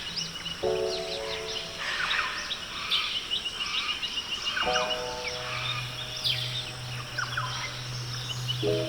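Songbirds chirping, with one bird repeating a rapid high trill, over soft relaxation music: a held chord begins about every four seconds (three times) above a low steady drone.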